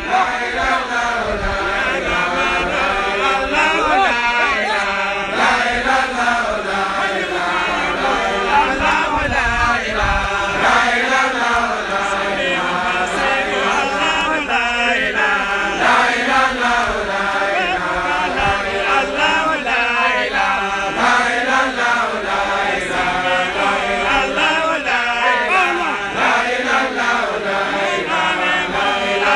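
A group of men chanting together without a break, one voice leading loudly over the others: Islamic dhikr, the recitation of the names of God and of the Prophet Muhammad.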